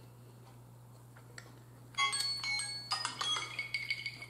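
A very quiet room with a low steady hum, then about halfway in a melody of bell-like chiming notes starts and keeps going.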